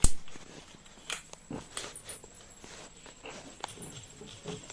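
Clicks and knocks of a plastic TV remote being handled and its case pressed back together, with one sharp click at the start and smaller scattered clicks after.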